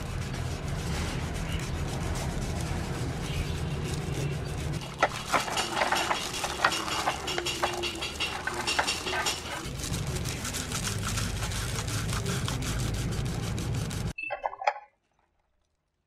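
Metal table-fan parts scrubbed with a toothbrush in a plastic basin of soapy water, clinking against each other and the basin, with a busy stretch of sharp clinks in the middle. A steady low rumble runs underneath until the sound cuts off abruptly near the end.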